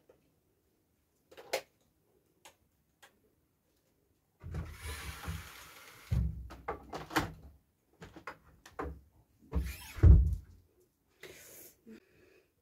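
Handling at a wooden wardrobe: a few light clicks, then rustling and several dull thumps as things are put away and the cupboard doors are worked. The loudest thump comes about ten seconds in.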